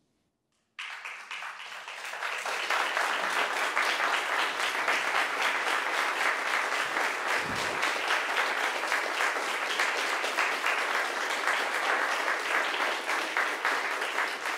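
Silence, then an audience bursts into applause a little under a second in, building over the next few seconds into steady, dense clapping. A brief low thump sounds about halfway through.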